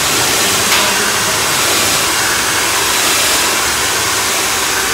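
Hair dryer running steadily with a loud, even rush of air.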